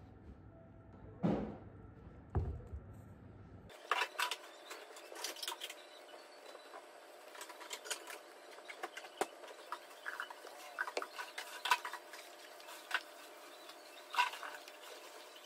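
Scattered light clicks of fingers typing on a laptop keyboard over a faint steady room hum, with a couple of soft thumps in the first few seconds.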